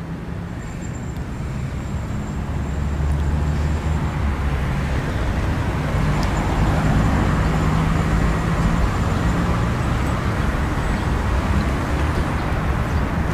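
Steady low rumble of motor-vehicle traffic, swelling about three seconds in and holding.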